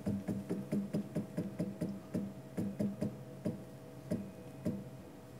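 Z-axis drive motor and ball screw of a CNC-converted Grizzly G0704 mill jogging the head in small increments: a rapid series of short buzzing clicks, about four a second, spacing out near the end, over a faint steady hum. Each click is one small step of the head during a backlash check.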